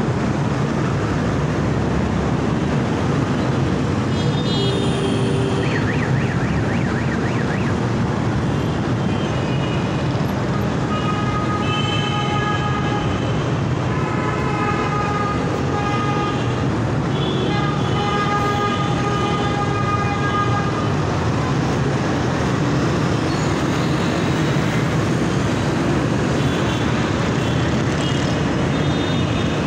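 Busy road traffic running, with a steady engine and tyre rumble. Between about 10 and 21 seconds in, long horn tones sound over it several times, held a second or two each.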